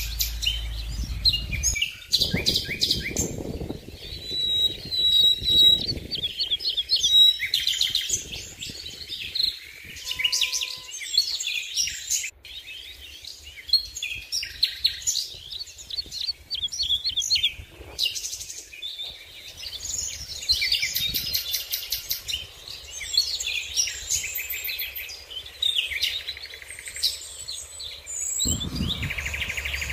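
Songbirds chirping and singing in a dense, overlapping chorus of short high calls and trills, with a low rumble in the first couple of seconds and again near the end.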